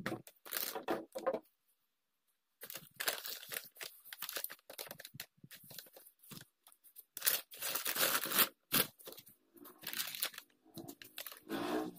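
Foil insulation lining and nylon fabric of a thermal delivery bag crinkling and rustling in irregular bursts as a plastic frame is pushed into place inside it, with a brief pause about two seconds in.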